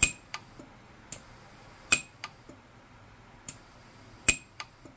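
Orion 150s micro TIG pulse arc welder firing single weld pulses on a platinum ring: three sharp snaps roughly two seconds apart, each with a brief high ring, with fainter clicks between them.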